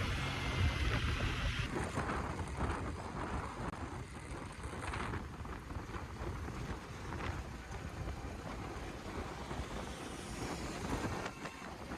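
Wind buffeting the microphone over a steady rush of road and traffic noise, as on a moving motorcycle. The character of the noise changes abruptly about two seconds in.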